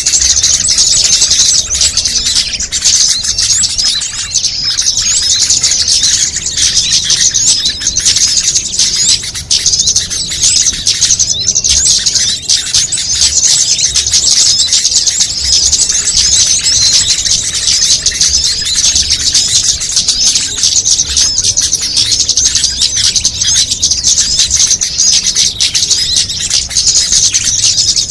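Dense, continuous high chirping and twittering of many small songbirds calling over one another: a mixed small-bird lure call track.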